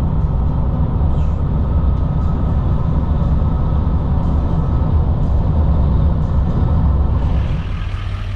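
Steady low road rumble of a moving vehicle heard from inside the cabin. About seven and a half seconds in, it drops to a quieter hum with more hiss.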